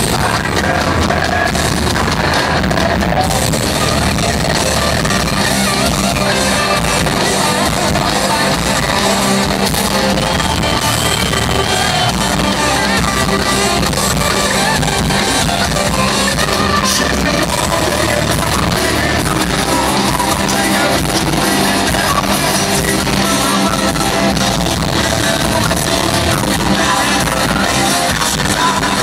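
Live rock band playing through a concert PA in a large hall: loud distorted electric guitars, bass and drums, with a male lead vocal sung and yelled over it. Recorded from the crowd, loud and somewhat distorted.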